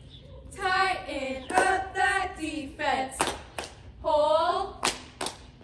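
Several girls chanting a cheer together in drawn-out called lines, with about five sharp hand claps between the lines.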